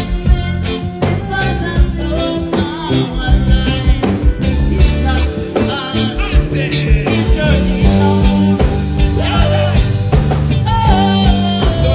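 Band music with a singer: a steady drum beat and bass line under a sung vocal line.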